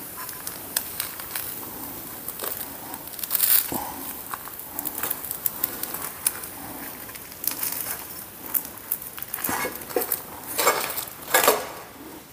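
Steel spatula scraping and clicking on a black dosa griddle, with the crisp ghee roast dosa rustling as it is loosened and rolled into a cone. Longer scrapes come about three and a half seconds in and twice near the end.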